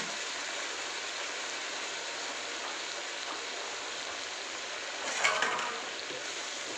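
Chicken and potato curry sizzling steadily in an iron karahi. About five seconds in, a spatula scrapes through it briefly as it is stirred.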